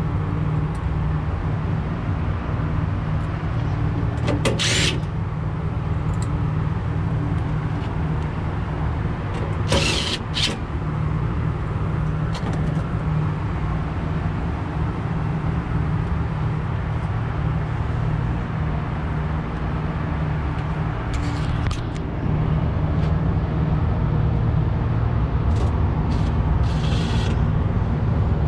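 Steady low drone of running rooftop HVAC equipment, with a few short clicks and rattles from parts being handled.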